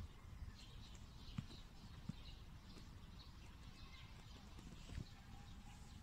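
Near silence outdoors: a low rumble of light wind on the microphone, with a few faint clicks and faint, scattered high chirps.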